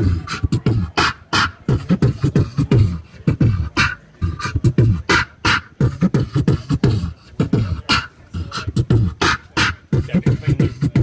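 Amplified beatboxing into a microphone: a steady, fast beat of sharp snare-like clicks over deep kick sounds that drop in pitch.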